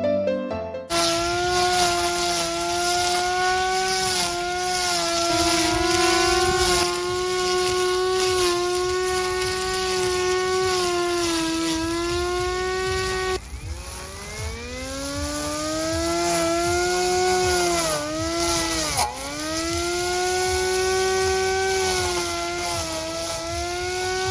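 Battery-powered handheld lawn mower's electric motor spinning its cutting blade, a steady high-pitched whine that starts about a second in. The pitch drops sharply and climbs back twice, about halfway through and again later, as the motor slows and recovers.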